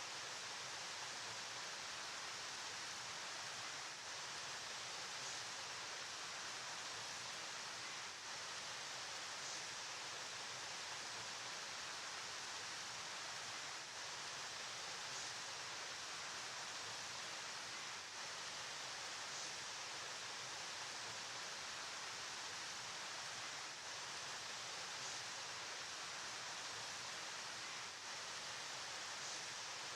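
A river flowing: a steady, even rushing hiss of moving water, with no distinct splashes or other events.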